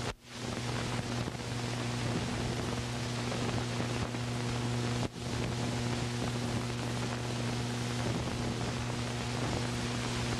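Steady hiss with a low hum from an old film soundtrack, dropping out briefly twice: just after the start and about halfway through.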